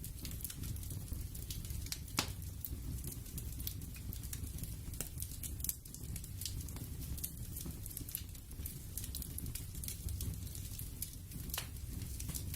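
Steady low rumble with sharp crackles and pops at irregular moments, like a crackling ambience bed.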